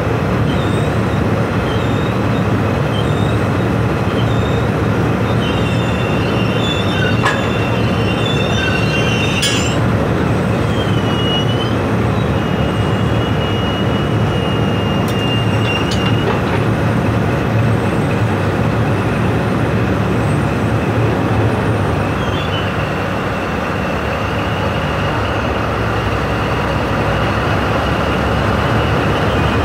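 Drilling rig floor machinery running steadily with a dense, loud rumble while drill pipe is run into the hole. High squeals come and go over it, and there are two sharp knocks about seven and nine and a half seconds in.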